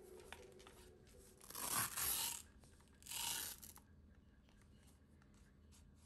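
Cloth mop pad of a Xiaomi Mi G10 mop attachment being peeled off its clear plastic water-tank plate: two ripping sounds as the hook-and-loop fastening tears loose, the first about one and a half seconds in and the second about a second later.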